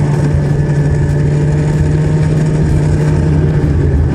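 Ski-Doo snowmobile engine running at a steady cruising speed, its pitch held even, with wind and track rush heard from the rider's seat.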